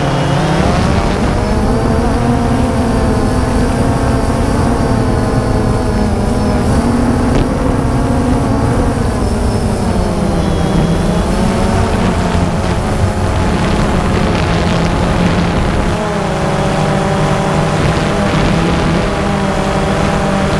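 Multirotor drone's motors and propellers humming steadily, the pitch drifting up and down as the motors change speed.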